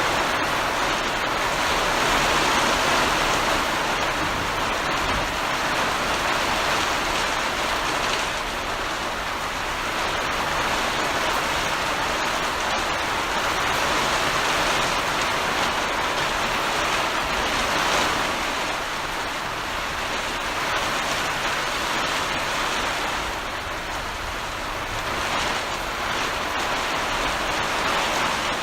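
Heavy rain falling steadily in a downpour, a dense hiss that swells and eases gently every few seconds.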